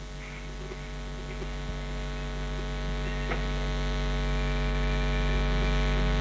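Electrical mains hum: a steady low buzz with a stack of overtones, slowly growing louder.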